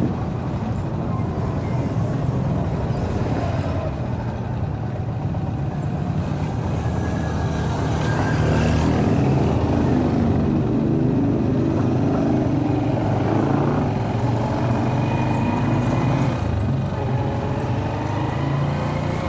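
Motorcycle engine running at low speed with road and traffic noise; the engine note rises and falls slightly in the second half.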